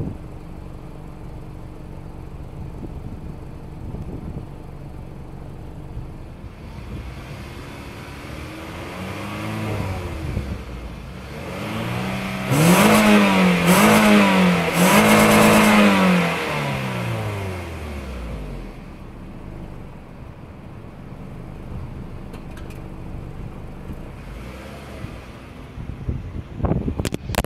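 2006 Scion tC's 2.4-litre four-cylinder engine idling and being revved through its stock exhaust, heard at the tailpipe. It gives one small blip, then three quick hard revs in a row about halfway through, after which the revs sink slowly back to a steady idle.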